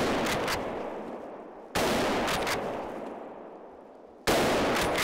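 Three hunting rifle shots, the first right at the start and the others roughly two to two and a half seconds apart, each a sharp crack followed by a long echo that fades away.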